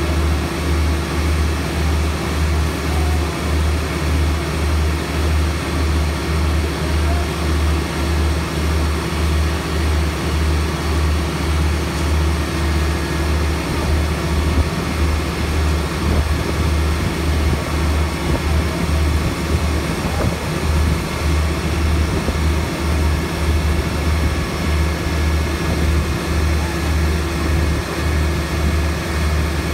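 A large engine running steadily at constant speed: a low drone that pulses slowly and evenly, with no change in pitch or level.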